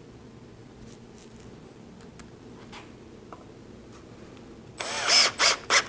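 Cordless drill-driver driving a screw through a T-track into a plywood fence: quiet for most of the time, then about five seconds in one longer run of the motor followed by two short bursts as the screw seats.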